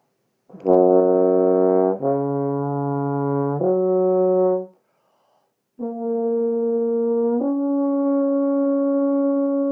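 Tuba playing a lip slur fingered on valves two and three, the notes joined without tonguing. Three held notes that step down and back up, then after a short breath two notes stepping upward.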